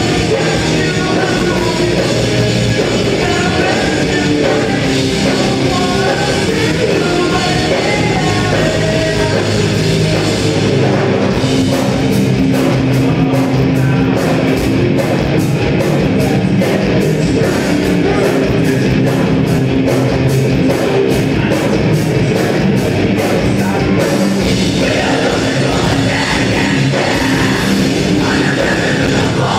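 Loud heavy rock played live by a band: guitars, bass, drums and singing. Through the middle of it the drummer keeps up steady cymbal strikes, about three a second.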